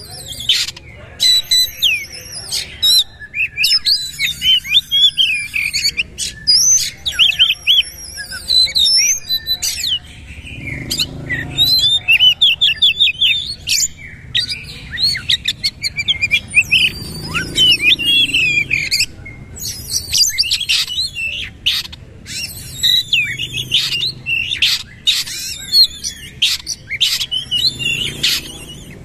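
Caged oriental magpie-robin (kacer) singing loud, fast and near-continuous song: a rapid string of varied whistles, chattering trills and sharp notes with only short breaks, the hard-hitting 'nembak' (shooting) delivery prized by Indonesian bird keepers.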